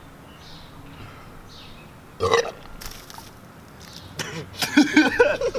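A man belching from a stomach full of bananas and carbonated Sprite, trying to bring it up: one short belch about two seconds in, then a longer, louder one near the end.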